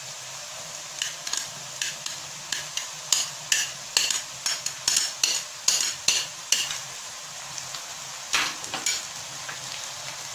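Onions and garlic paste frying in oil in a wok, a steady sizzle, while a spoon scrapes and taps on a plate, a string of sharp clicks about two a second, as chopped ginger is pushed off into the pan. A few more clicks come near the end.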